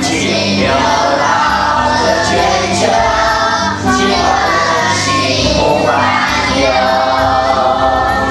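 Music with a choir singing over sustained accompaniment.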